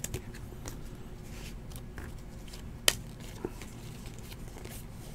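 Trading cards being handled and flipped through by hand: a few light clicks and taps of card stock, one sharper click about three seconds in, over a steady low room hum.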